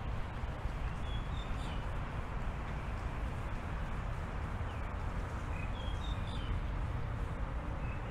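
Birds chirping in short high clusters, about a second in, again around six seconds in and near the end, over a steady low rumble.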